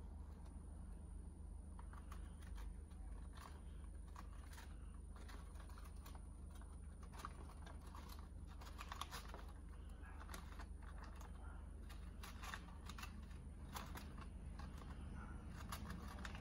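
Light, irregular clicking and scratching of small pebbles and gravel as a mouse scrabbles over the terrarium floor, over a steady low hum.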